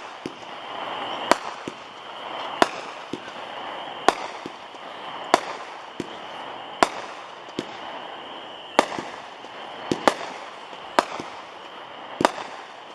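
A World Class 'The Cowboy' 25-shot 200-gram consumer aerial repeater cake firing: sharp reports about every second to second and a half, some coming close together, with a hissing wash between shots.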